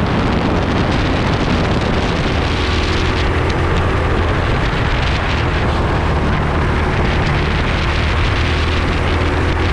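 Racing kart engine running hard on track, heard from the driver's seat: a steady low drone with wind rushing across the camera microphone.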